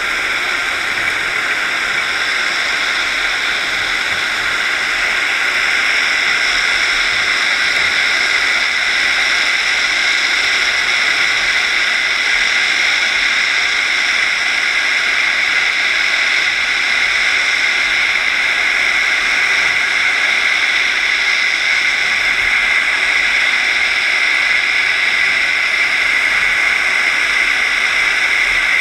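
Steady, loud underwater hiss from a GoPro in its waterproof housing, mounted on a scallop dredge being towed along the seabed. Water rushes past the moving gear, with a few faint steady tones running through it.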